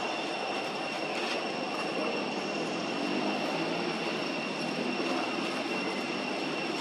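Steady outdoor background noise with a constant high-pitched whine running through it, level and unchanging.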